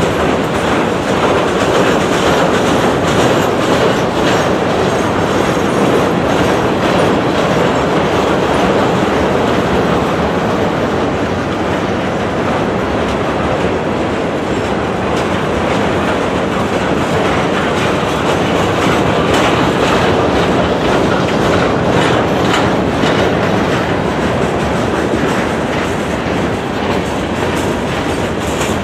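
Freight train of open-top hopper cars rolling steadily past: a continuous rumble of steel wheels on rail, with repeated clicks as the wheels cross rail joints.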